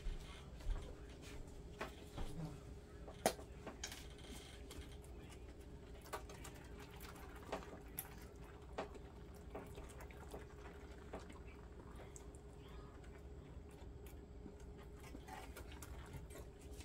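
Soft squirts and scattered small clicks and rustles as fabric dye is squeezed from a plastic tie-dye squeeze bottle onto damp crumpled fabric in a foil pan, with a sharper click about three seconds in. A faint steady hum lies underneath.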